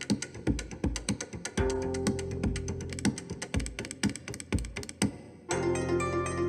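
Background music with a steady beat; about five and a half seconds in it gives way to a tune on plucked strings.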